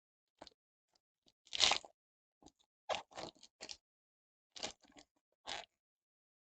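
Wrapper of a 2022 Panini Luminance football card pack crinkling as it is torn open, with the cards then handled: a series of short crackles with pauses between them, the loudest about a second and a half in.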